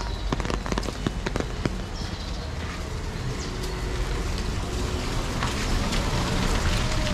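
Rain pattering on a wet city street, with a steady low rumble of traffic. A quick run of sharp drip ticks comes in the first second or two.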